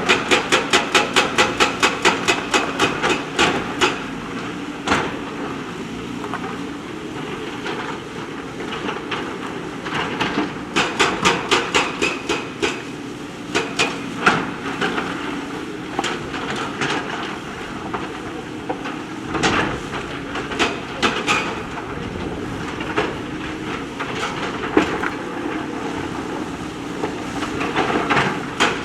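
JCB backhoe loader at work: its diesel engine runs steadily under load. Over it come runs of sharp, evenly spaced metallic knocks, about four a second, for several seconds at a time: at the start, again about ten seconds in, and near the end.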